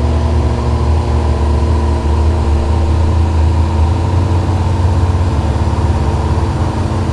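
1967 International gas pickup's engine running steadily at constant revs while pulling the sled down a tractor-pull track: slow but steady.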